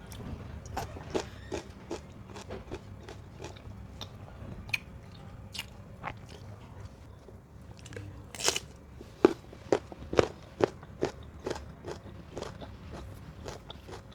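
Close-miked biting, crunching and chewing of mango, with a run of sharp crunchy clicks; the biggest crunch comes about eight and a half seconds in, followed by several loud ones.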